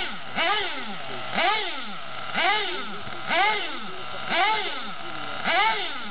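Small glow-fuel model-car engine held at a steady idle and blipped in quick, regular revs about once a second, its pitch rising and falling with each blip.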